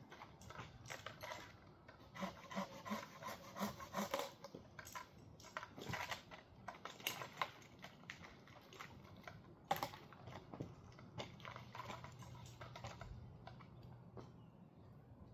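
Faint, irregular knocks, clicks and rubbing of wood, busiest in the first half, with one sharper knock a little after the middle.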